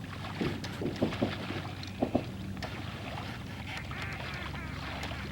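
Duck quacks: a few short calls in quick succession in the first couple of seconds, over a steady low background rumble.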